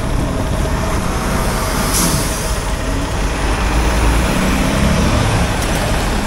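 Heavy diesel semi-truck running, with a brief hiss about two seconds in.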